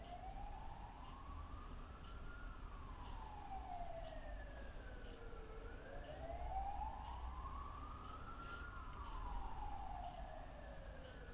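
Faint emergency-vehicle siren wailing, its pitch rising and falling slowly, about six seconds each full cycle, with a fainter second siren sweeping higher and out of step with it.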